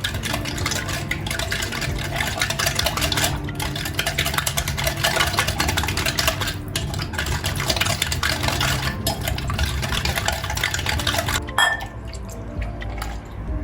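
Water running steadily, with a few brief breaks in the flow.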